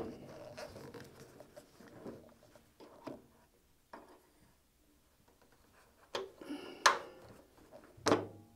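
Scattered clicks and knocks of a table saw's blade-tilt mechanism being adjusted and locked at 45 degrees, the loudest knocks coming about six and seven seconds in and again near the end.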